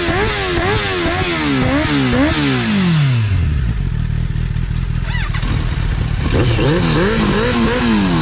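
2023 Kawasaki ZX-10R's inline-four engine revved on its stock exhaust in quick repeated throttle blips, the pitch rising and falling with each. It drops back to a steady idle about three seconds in, then is blipped again a few more times from about six seconds in.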